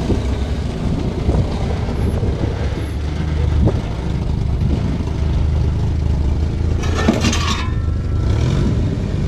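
Off-road 4x4's engine running at low, steady revs while it works down a steep trail descent, with a short harsh scraping noise about seven seconds in.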